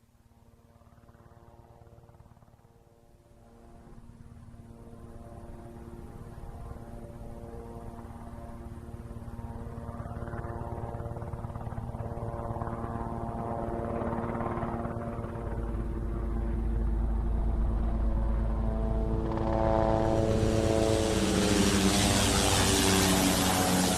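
Enstrom 480B turbine helicopter approaching on a flyover: a steady multi-tone hum of rotor and engine fades in and grows louder over about twenty seconds. Near the end a loud rushing rotor noise swells in and the pitch dips slightly as it comes close.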